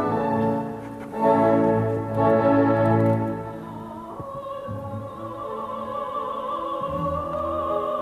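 Classical orchestra playing full chords, then from about four seconds a soprano holding one long high note with vibrato over soft accompaniment.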